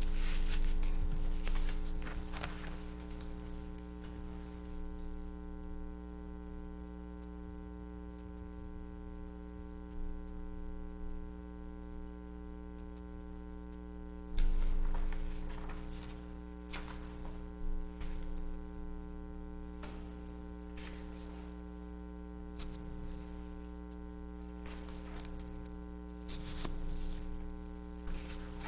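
Steady electrical mains hum with a stack of evenly spaced overtones, picked up through the table microphone system. Over it come occasional short knocks and rustles of papers and pens on the table, the loudest a thump about fourteen and a half seconds in.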